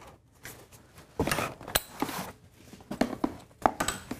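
Infant car seat base being fitted to a vehicle seat: scattered sharp plastic and metal clicks and knocks as its LATCH connectors are hooked onto the seat's latch bars, with handling rustle between them.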